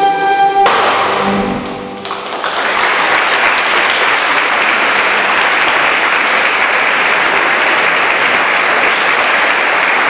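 A renaissance dance band's music ends on a held chord less than a second in, fading briefly in the hall. About two and a half seconds in, audience applause starts and stays steady.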